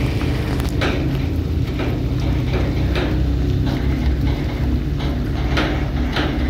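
Heavy-haulage truck's diesel engine running with a steady low drone, with short clicks scattered through it.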